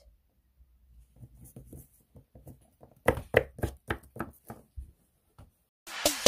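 Light taps and clicks of a plastic Littlest Pet Shop figurine being moved by hand against the tabletop: faint at first, then about ten quick, uneven taps for a couple of seconds. Electronic music starts near the end.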